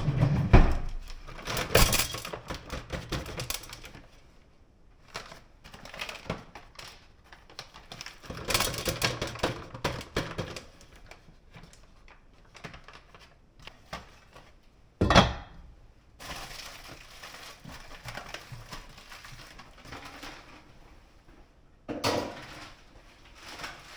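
A cooking pot and lid being handled on the stove, with bursts of clattering and rattling and one sharp knock about fifteen seconds in.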